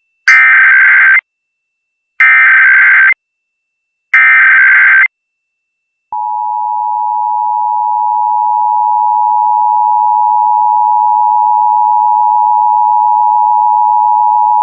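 Emergency Alert System tones: three bursts of the EAS digital header, each a harsh screeching data sound about a second long, about two seconds apart, then the steady two-tone attention signal held for about eight and a half seconds. Together they open a national EAS test message.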